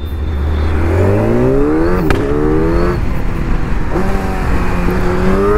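Kawasaki Ninja 1000's inline-four engine, on a stock exhaust with Black Widow headers, accelerating hard. Its revs rise and drop back at quick-shifter upshifts, with a sharp crack at the first shift about two seconds in.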